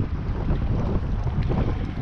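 Strong gusty wind buffeting the microphone: an uneven low rumble with no other clear sound on top.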